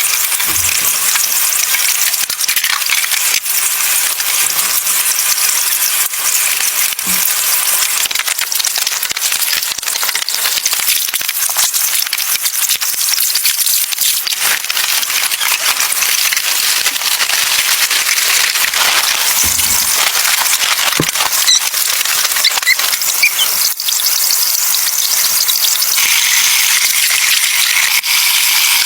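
Food frying in a pan over a camp fire, a steady sizzle with fine crackles and pops, growing a little louder near the end.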